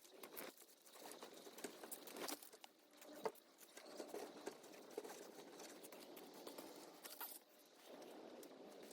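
Faint rustling with scattered light clicks, the sound of something being handled, with one sharper click about three seconds in.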